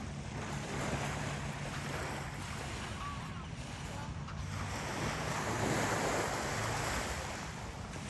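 Sea surf washing onto the beach, one wave swelling to its loudest about five to seven seconds in and then easing off, with wind buffeting the microphone.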